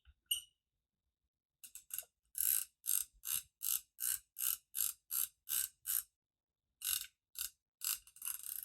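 Small camera mechanism ratcheting as the Zeiss folding camera's film advance knob is turned: a run of short clicking rasps, about two and a half a second, with a brief pause about two-thirds through.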